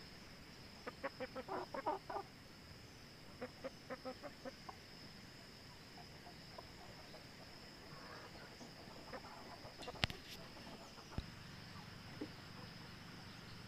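Domestic hens clucking: two quick runs of short clucks, about a second in and again around three and a half seconds, then scattered single clucks. A sharp click comes about ten seconds in.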